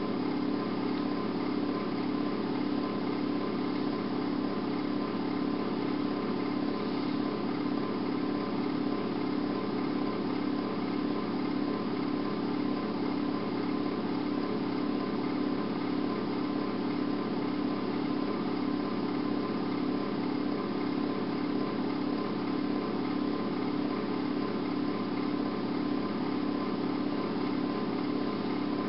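A steady, unchanging hum over constant hiss, with its strongest tone low-pitched and faint higher tones above; no voice or distinct events are heard.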